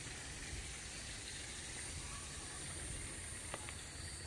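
Quiet outdoor ambience: a steady hiss with a low rumble underneath and a faint, steady high tone, and a faint click about three and a half seconds in.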